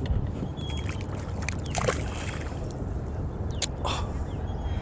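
Water splashing and sloshing against a kayak hull as a hooked catfish thrashes at the surface alongside, with two sharper splashes, one about two seconds in and one near four seconds, over a steady low rumble.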